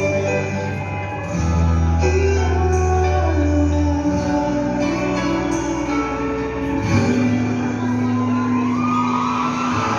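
Slow music, mostly instrumental, with long held bass notes and chords that change every few seconds.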